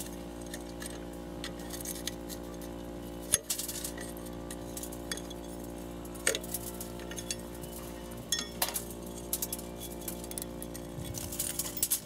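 Small metallic clinks and ticks of a nut driver, screws and loose burner parts being handled on a rusty RV propane water heater, with one sharper click about three seconds in and a quicker run of ticks near the end. A steady hum of several even tones runs underneath.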